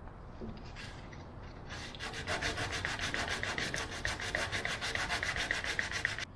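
Rapid back-and-forth rubbing on wood, like hand sanding, starting about two seconds in as a fast even rhythm of about eight strokes a second, then stopping suddenly near the end.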